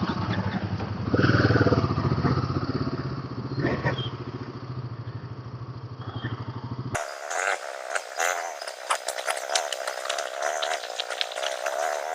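Royal Enfield Himalayan 450's single-cylinder engine running at low trail speed, rising briefly about a second in. About seven seconds in the sound cuts abruptly to a thin recording with no bass, carrying a wavering mid-pitched tone and rapid clattering clicks.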